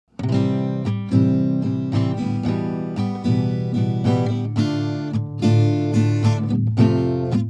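Background music: strummed acoustic guitar, starting abruptly after silence.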